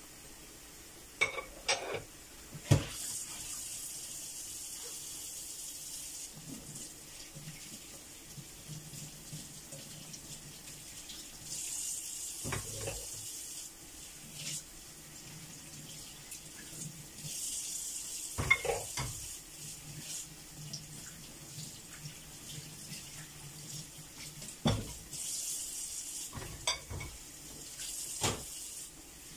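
Kitchen tap running in short spells into a sink, with dishes and cutlery clattering as they are washed; a handful of sharp knocks of crockery stand out.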